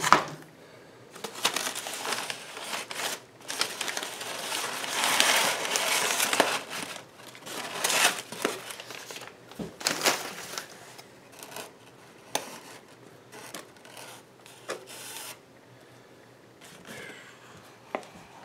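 Crumpled newspaper packing being pulled out of a foam-lined shipping box: paper rustling and crinkling in bursts, heaviest in the first half. Later come a few short light clicks and knocks as plastic deli cups are handled and set down.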